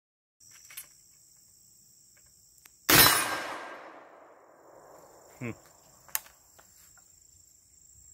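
A single loud shot from a .58 calibre 1853 Enfield replica black-powder percussion (cap-lock) rifle-musket about three seconds in, its echo dying away over about a second and a half. Insects chirr steadily in the background.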